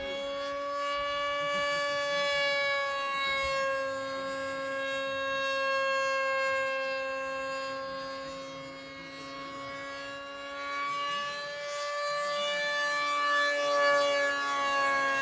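Radio-controlled model airplane's motor whining steadily in flight. The pitch shifts slightly and the sound swells and fades as the plane passes, quietest about two-thirds of the way through and loudest near the end.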